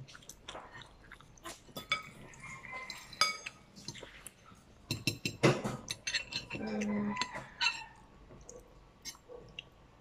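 Metal fork clinking and scraping against a plate of black bean noodles, with chewing between the clinks. A short low hum about seven seconds in.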